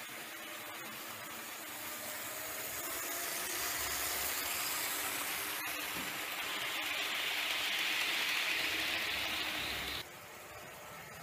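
HO-scale model train running close past on the layout's track: the steady hiss of its wheels on the rails and its motor, growing louder over the first few seconds, then cutting off abruptly about ten seconds in.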